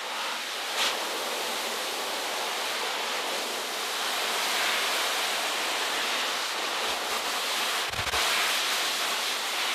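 High-velocity pet dryer blowing a steady rush of air through its hose and nozzle into a curly dog coat, a little louder from about halfway. A brief low thump comes near the end.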